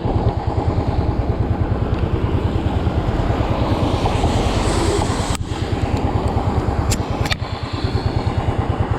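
Motorcycle engine running at a steady speed while riding, its fast, even low pulsing under a steady hiss of wind and road noise. A few sharp clicks come about halfway through.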